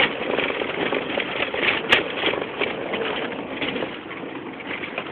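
Suzuki Jimny driving over a rough dirt track, heard from inside the cabin: the engine runs under a dense rattling and clattering of the body, with a sharp knock about two seconds in.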